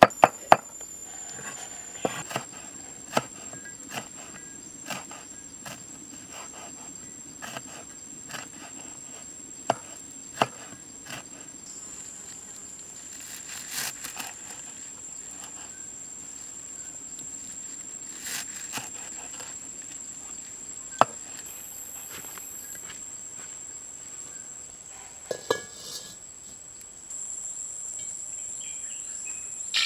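A steady high-pitched drone of insects such as crickets, with a steel cleaver knocking on a wooden chopping board now and then.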